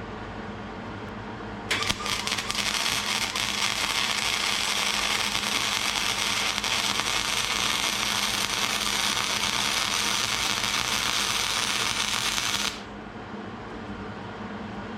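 Hobart Handler 140 flux-core wire-feed welder arc crackling and sizzling as a bead is run. It starts about two seconds in with a few sputtering pops, holds steady for about eleven seconds, then cuts off sharply. A low steady hum runs underneath throughout.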